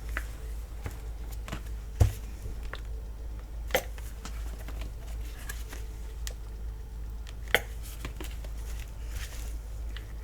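A few scattered sharp clicks and taps from paint bottles and a plastic cup being handled while paint is added to the cup, over a steady low hum.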